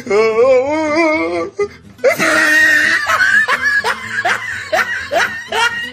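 A short wavering, warbling musical tone for about a second and a half. Then, after a brief pause, a man's laughter as a run of short rising cries.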